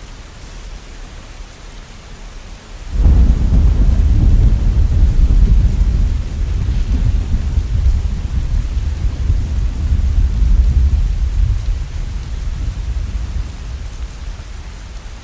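Steady rain falling, with a roll of thunder that breaks in suddenly about three seconds in as a deep rumble and slowly fades away over the next ten seconds or so.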